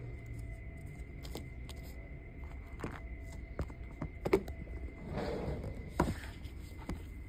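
Handling noise from jewelry-making supplies: a few light clicks and knocks as small items are picked up and set down on a cloth-covered table among plastic boxes, the sharpest about four seconds in, with a brief rustle just after. A faint steady high-pitched tone runs underneath.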